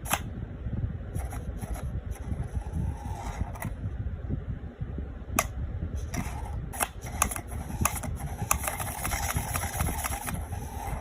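Steady fan-like hum with scattered sharp clicks and short rustling bursts, thicker in the last few seconds.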